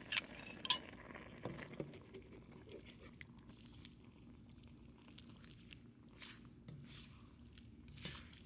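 Faint stirring of a sauce in an electric wok with a plastic spatula: a couple of light clicks in the first second, then soft scattered scrapes and ticks as cornstarch slurry is poured in to thicken the sauce.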